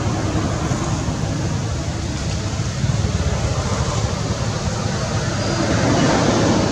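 Steady rushing background noise with a low rumble, swelling slightly near the end.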